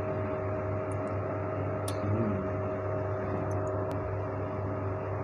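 Steady hum and hiss of a running electrical appliance, with a couple of faint sharp clicks.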